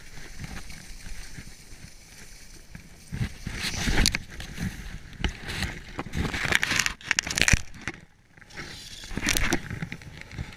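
Skis sliding and scraping over packed snow in surging rushes of hiss as the skier turns, with wind rumbling on the microphone. The scraping is loudest about four seconds in, again between five and seven and a half seconds, and once more near the end, with a short lull just after eight seconds.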